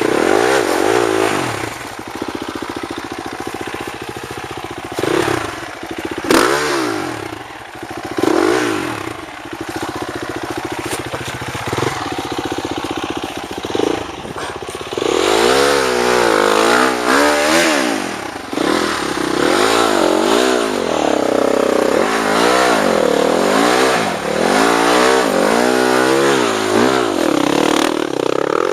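Off-road dirt bike engine running and being revved. It is blipped a few times early on, then from about halfway it is revved up and down over and over in quick succession as the bike is ridden out of where it was stuck on a slope.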